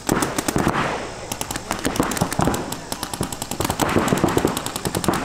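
Paintball markers firing rapid strings of shots, many pops a second.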